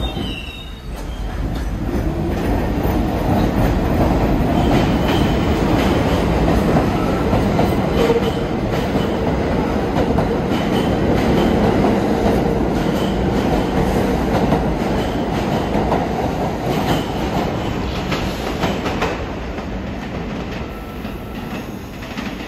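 New York City subway train on the BMT Brighton Line going by, its wheels clacking over rail joints with a faint, intermittent high squeal. It builds up over the first couple of seconds, runs loud for most of the time, then fades out.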